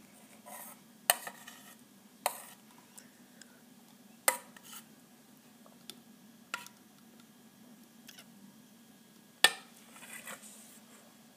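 A spoon clinking against small glass verrines while thick mascarpone cream is spooned into them: five sharp clicks at irregular gaps.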